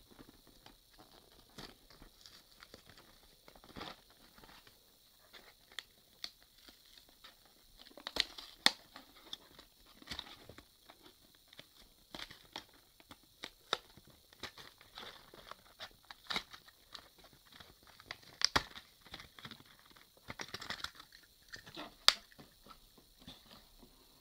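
Hands opening a toy's retail box: irregular crinkling, tearing and crackling of the packaging, with scattered sharp clicks and a few louder snaps.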